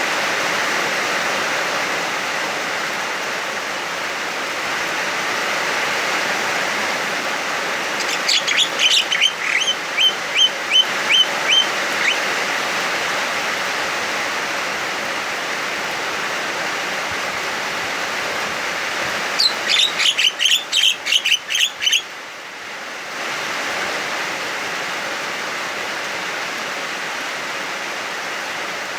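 Javan myna giving two runs of rapid, sharp repeated calls about ten seconds apart, over the steady hiss of heavy rain.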